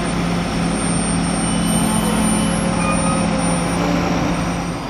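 A heavy engine running steadily, a low drone with a steady hum that cuts out near the end.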